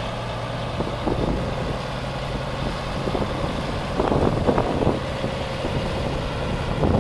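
Diesel engine of a 2006 Volvo tandem-axle truck tractor running steadily as the truck drives slowly across a gravel lot. Wind buffets the microphone about four seconds in and again near the end.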